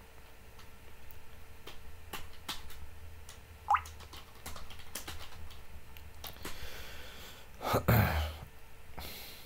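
Computer keyboard typing: scattered, irregular keystroke clicks. There is a short rising chirp a little under four seconds in, and a brief louder burst of noise near the end.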